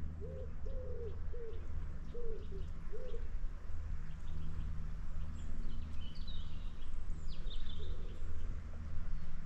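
A pigeon cooing in a run of about eight low, rounded notes over the first three seconds. A small bird gives a few short, high chirps later on, over a steady low hum.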